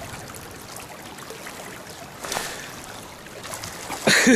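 Steady rush of a flowing river. Near the end a man breaks into a loud, repeated "hoo-hoo-hoo" as he hooks a fish.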